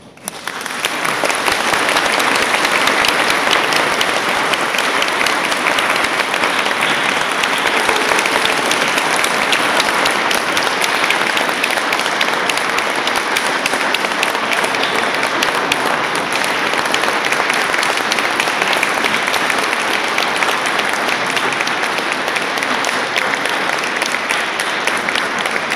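Audience applauding: dense clapping that breaks out at once, builds to full within about two seconds and then holds steady.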